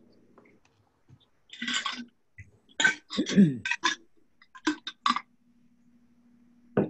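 Several short clicks and clinks, with a brief low falling vocal sound among them about three seconds in, over a faint steady hum at the start and near the end.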